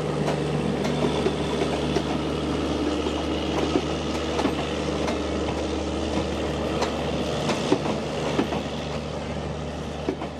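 Garib Rath passenger coaches rolling slowly past, their wheels clicking over rail joints above a steady low engine hum that falls away about three-quarters of the way through as the last coach goes by.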